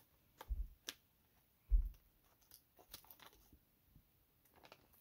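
Scissors snipping at a heat-sealed foil tobacco pouch, with faint crinkling of the packaging. Two dull thumps from handling come about half a second and nearly two seconds in, the second the loudest.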